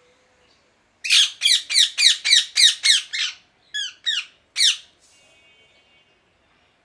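Ringneck parakeet squawking: a rapid run of about ten loud, harsh calls, each falling in pitch, then three more spaced squawks just after.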